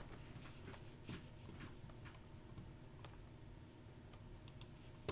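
Faint, scattered clicks of typing on a computer keyboard, with a quick run of sharper clicks near the end.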